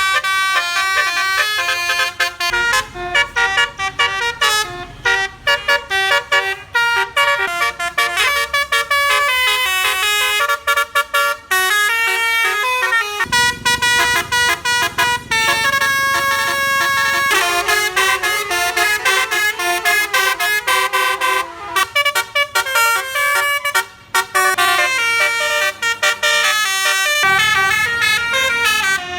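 Basuri telolet musical air horn on a bus playing fast melodic phrases, several tones at once stepping from note to note, with short breaks between phrases.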